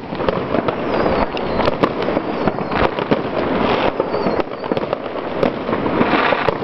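Many fireworks going off at once: a dense, unbroken run of bangs and crackling from aerial shells bursting overhead.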